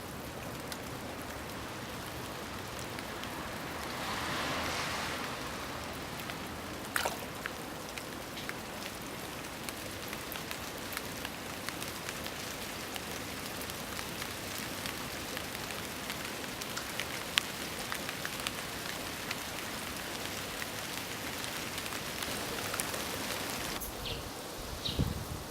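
Water running from a bamboo spout (kakehi) into a stone basin: a steady splashing trickle with many small sharp drips, a brief louder swell about four seconds in, and a single sharp knock around seven seconds.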